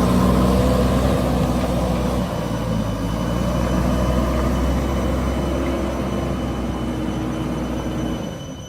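JCB backhoe loader's diesel engine running steadily, with a faint high whine joining in after a couple of seconds; the engine sound drops away shortly before the end.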